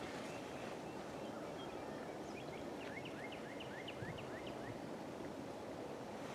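Wild turkey gobbling faintly: a quick rattling run of about a dozen short notes lasting about two seconds, a little past the middle, over steady background noise.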